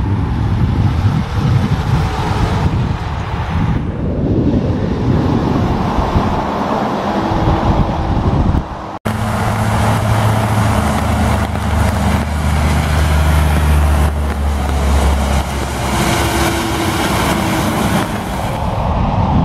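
Heavy diesel semi trucks passing on a highway, recorded from the roadside. About halfway through the sound cuts abruptly to traffic on a rain-soaked highway: tyres hiss on the wet road under a truck engine's steady low drone.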